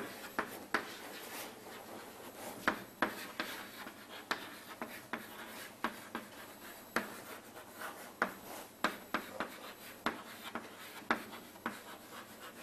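Someone writing by hand: short, irregular scratching strokes, a stroke or two a second, with faint room tone underneath.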